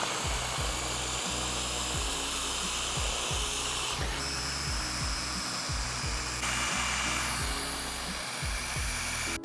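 Blender motor running, pureeing sautéed shallots, chickpeas and walnuts into a creamy sauce. Its sound shifts about four seconds in and again a little past six seconds, then stops suddenly near the end.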